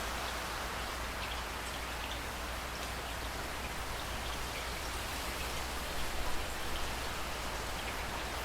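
Steady rain falling, with scattered distinct drop hits and a brief cluster of louder hits about six seconds in.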